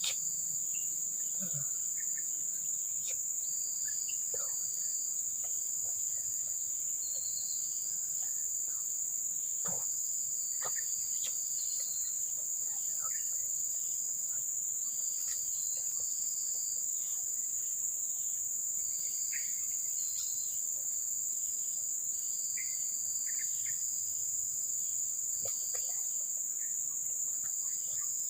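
Insect chorus of crickets: a steady high-pitched drone with shorter chirps repeating over it and a few faint clicks.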